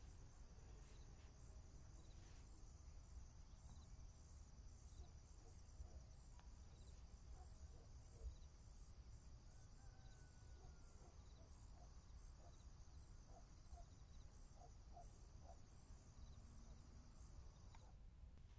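Near silence: faint room tone with a steady, finely pulsing high hiss that stops just before the end.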